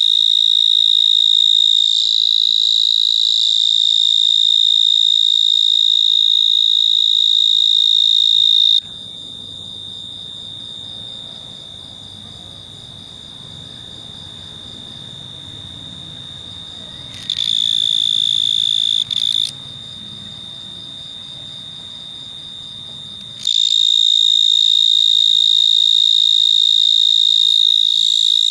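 Mole cricket singing from its burrow: a continuous high-pitched trill. It is loud at first, drops much quieter about nine seconds in, comes back loud briefly around eighteen seconds, and is loud again for the last five seconds.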